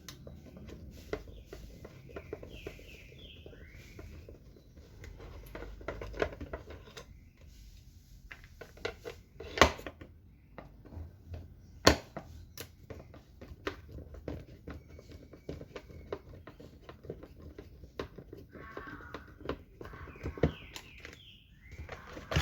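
Screws being backed out of a blender's plastic base and the housing handled: scattered small clicks and rattles, with two sharper knocks about ten and twelve seconds in. A bird chirps in the background near the start and again near the end.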